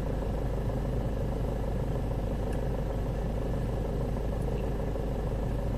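A 2005 Jeep Liberty CRD's 2.8-litre four-cylinder turbodiesel idling steadily, a constant low hum.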